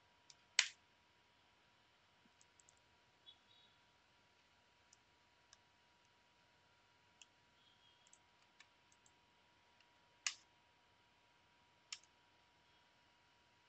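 Near silence broken by a few sharp clicks from computer input (mouse and keys). The loudest come about half a second in and again near ten and twelve seconds in, with fainter ticks between, over a faint steady tone.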